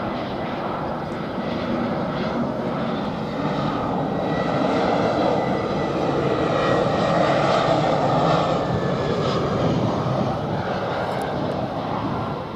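An easyJet Airbus A319-111 airliner on approach to land, passing by with the rumble of its CFM56 turbofan engines. The sound swells to its loudest about seven to eight seconds in and then fades, and a faint whine slowly falls in pitch as it passes.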